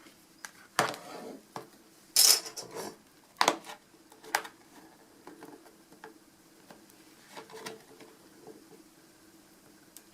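Back cover of a Nexus 7 tablet being pulled off: a string of sharp clicks and clacks as its clips let go and the cover is handled, the loudest in the first half, then a few fainter taps.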